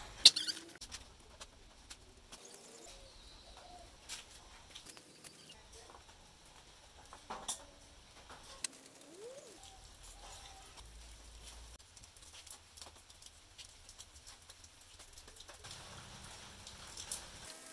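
Scattered sharp metal clicks and clinks from a socket wrench and the camshaft sprocket being worked off a motorcycle engine's cylinder head, the loudest just at the start. Faint bird calls come in between.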